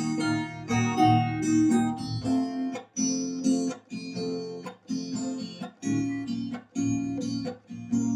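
Acoustic guitar playing an instrumental intro, with steady rhythmic chord strums. After about two seconds the chords turn into shorter, clipped strokes with short gaps between them.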